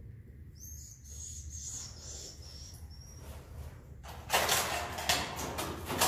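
High, thin chirping of swiftlets for a few seconds, then, from about four seconds in, a long harvesting pole rasping against a wooden ceiling plank as it scrapes off a swiftlet nest.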